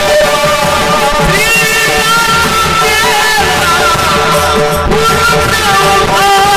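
Marathi devotional kirtan music: an abhang being sung to a melody, with a hand-played barrel drum (pakhawaj) keeping the beat.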